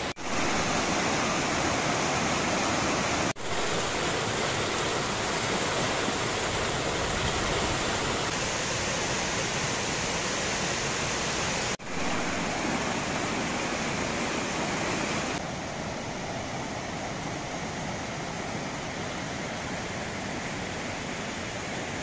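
Fast-flowing river rushing over rapids and small cascades: a steady wash of water noise, broken by two brief cut-outs, about three seconds and about twelve seconds in, and a little quieter in the last third.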